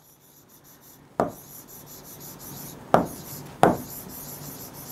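A pen writing on a board: about a second of near quiet, then the tip rubbing across the surface in strokes. There are sharp taps about a second in and twice around three to three and a half seconds in.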